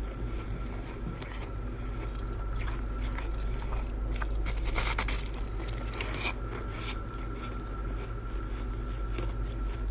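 Chest-freezer frost being scraped and crunched while it is eaten: scattered scraping and crunching, with a louder dense burst about five seconds in, over a steady low hum.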